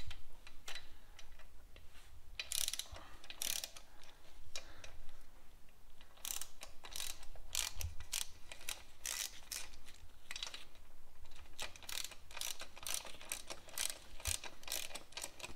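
Hand ratchet clicking as a nut on the cylinder head is run down in short back-and-forth strokes. The clicks come in scattered groups at first and quicker, more even runs from about six seconds in.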